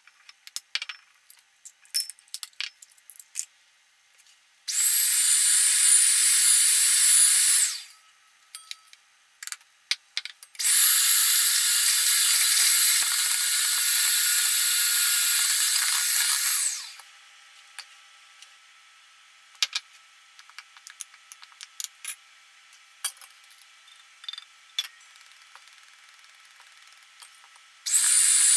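Electric hand mixer running with its beaters in a stainless steel bowl. It runs in two stretches of about three and six seconds, then comes on again near the end, with scattered clicks and taps in between.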